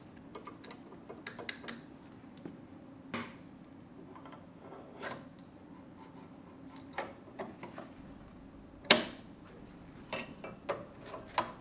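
Metal clicks and clinks from stainless-steel parts of a Grundfos SQF pump motor being fitted by hand and with a wrench in a bench vise. The clicks are scattered and irregular, with one louder clink about nine seconds in.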